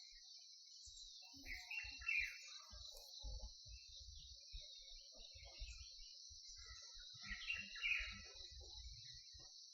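A peacock calling twice, a couple of seconds in and again near the end, over a steady high-pitched insect chorus and scattered low rumbles.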